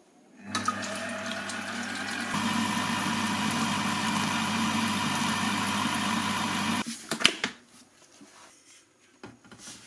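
Monsieur Cuisine Plus food processor's motor driving its whisk attachment at speed 4, whipping egg whites: a steady electric hum with a whine, louder from about two seconds in, stopping about seven seconds in. A few short knocks follow.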